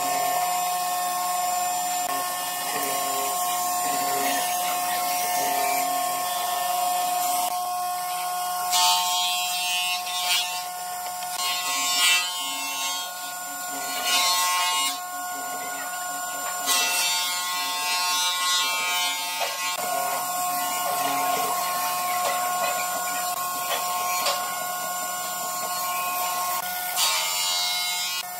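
Small electric power tool running steadily with a high motor whine, with several harsher surges as it bites into the wood.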